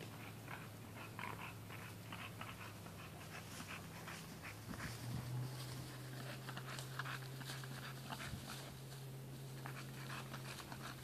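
A bulldog breathing hard, panting in short, irregular breaths, over a steady low hum that steps up in pitch about halfway through.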